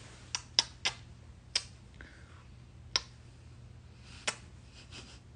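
Blown kisses: about seven sharp lip smacks, unevenly spaced, close to a phone's microphone.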